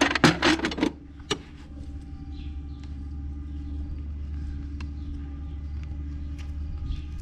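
A steady low rumble, with a quick run of clattering knocks in the first second.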